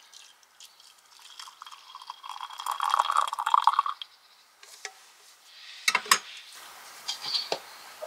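Warm milk poured from a small kettle into a wooden mug, a steady pour lasting about two and a half seconds. Then a couple of sharp knocks about six seconds in and a few lighter clinks as the kettle and mug are handled.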